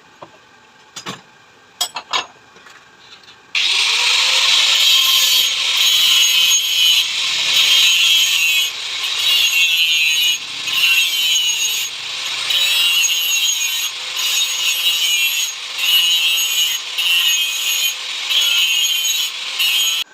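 A few light clicks, then about three and a half seconds in, loud hand-worked rasping on a metal shock-absorber part begins, a saw or file stroke, going on in steady back-and-forth strokes.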